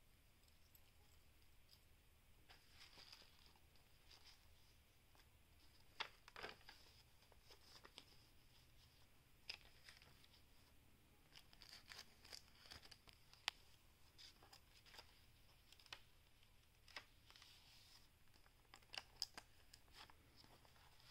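Paper rustling and crinkling as the pages and tucked paper pieces of a handmade junk journal are turned and handled, with scattered sharp taps and clicks.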